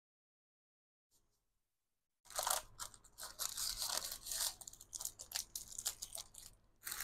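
Dead silence for about two seconds, then plastic craft-supply packaging crinkling and rustling loudly as it is handled, with many sharp crackles.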